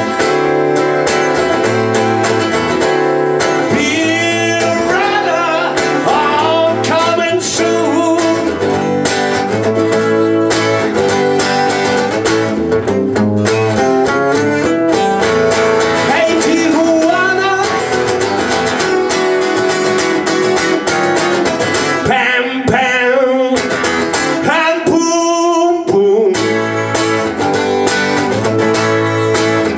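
Solo acoustic guitar in an instrumental break of a blues song, strummed steadily with picked lines over the chords. The low end drops away for a few seconds near the end before the full strumming returns.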